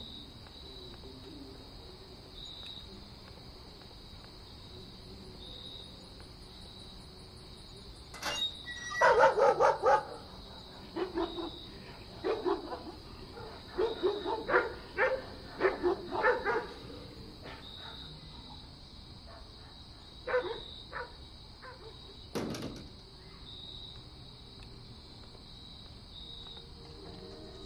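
A dog barking in clusters of short barks, loudest in the first cluster about a third of the way in, followed by a single sharp knock near the end.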